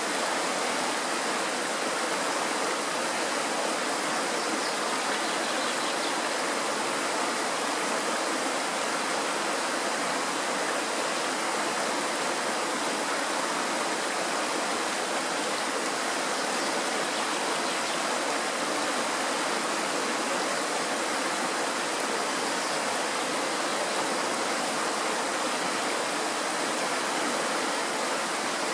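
Mountain stream rushing and splashing over rocks in a small white-water cascade: a steady, even rush of water that does not change.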